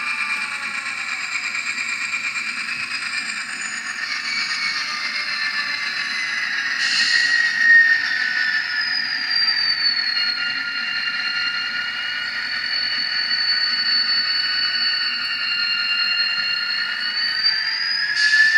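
Atlas N scale GP30's factory LokSound sound decoder playing its dynamic brake sound through the locomotive's tiny speaker: a steady whine of the brake-grid blowers whose tones glide down and later climb again near the end, as the dynamic brake is run and then shut down. Two short hisses break in, about seven seconds in and near the end.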